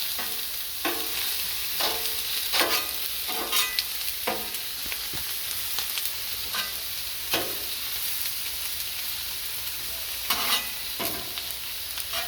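Onions and chicken sizzling on a Blackstone steel flat-top griddle, with a steady frying hiss. A cooking utensil scrapes and taps the griddle top at irregular intervals about a second apart as the food is stirred.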